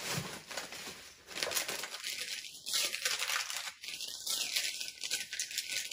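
Tissue paper crinkling and rustling in the hands as a small wrapped item is unwrapped, in irregular crackly handfuls.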